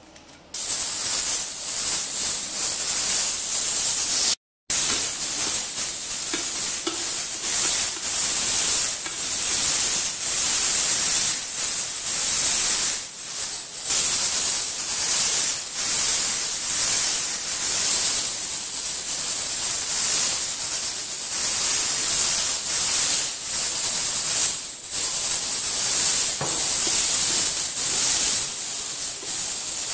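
A loud steady hiss, cut off for a moment about four and a half seconds in.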